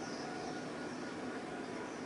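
Steady outdoor background noise: an even hiss with a few faint, steady hum tones and no distinct events.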